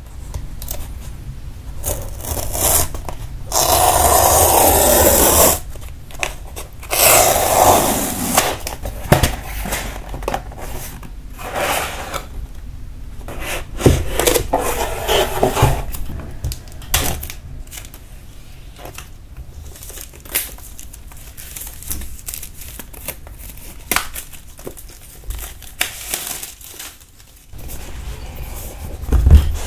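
Packing tape being peeled and torn off a cardboard shipping box, the longest and loudest tear about four seconds in, then cardboard flaps rustling and a boxed watch scraping as it is slid out and handled, with scattered clicks and taps.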